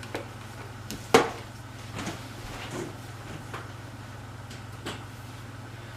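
A sharp knock about a second in, then a few softer knocks and rustles, as vacuum cleaner hoses are moved aside, over a steady low hum.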